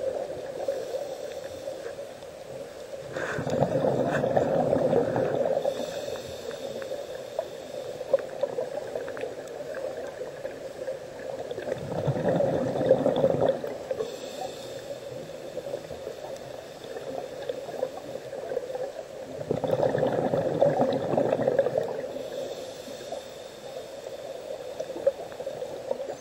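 Scuba diver's exhaled bubbles gurgling out of the regulator underwater: three long bursts about eight seconds apart, with a faint steady tone between breaths.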